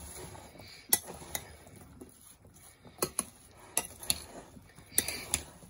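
Chopped fruit being tossed by hand in a glass bowl: soft, wet shifting of the fruit pieces with a few light, scattered clicks.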